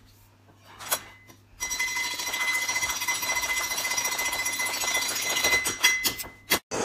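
Hard candy rope being chopped rapidly with a hand blade: after one click, a fast run of small clicks and taps starts about a second and a half in as pieces drop onto the pile of candy. A steady high whine runs underneath, and it all cuts off sharply near the end.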